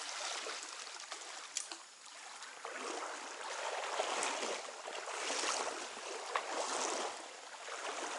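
Trout-stream water rushing and splashing close by, swelling and easing several times, with a few small clicks.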